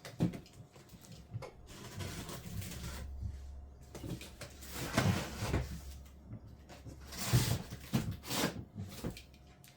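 Cardboard box being opened and handled: irregular scraping and rustling of cardboard, with louder rustles about halfway through and again near the end.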